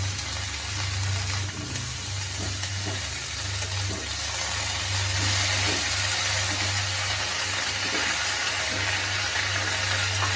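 Radish greens sizzling in hot oil with half-fried radish and brinjal, a steady hiss that grows a little stronger about halfway through, over a low steady hum.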